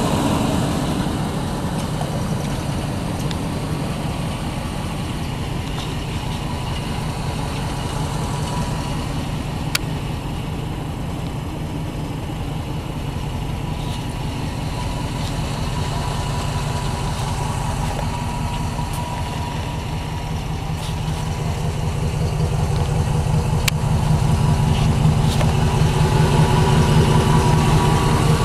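Ford E-350 Super Duty box truck's 5.4-litre V8 idling steadily, getting louder near the end.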